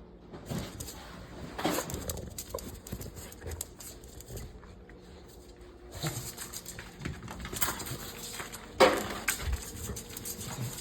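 American bully dogs moving about close by, with scattered small clicks and knocks and one sharp knock about nine seconds in.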